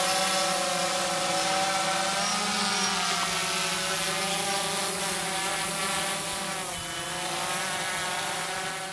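Multirotor drone's motors and propellers whining steadily: a stack of tones that drifts slightly up and down in pitch, over a hiss.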